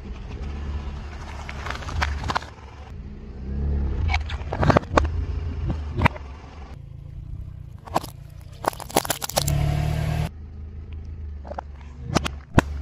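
A car tyre rolling slowly over objects on asphalt under a low rumble of tyre and engine, crushing them one after another with sharp cracks and crunches: a thin metal tin, a plastic squeeze bottle and then whole peaches. The loudest crack comes near the end.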